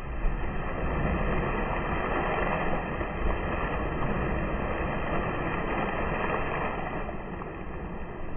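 Water splashing and churning after a person jumps into a swimming pool, heard as a long, steady rushing that eases a little near the end.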